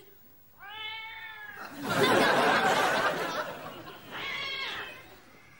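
Cat yowling: a long drawn-out call, then a loud harsh hissing screech, then a second shorter yowl.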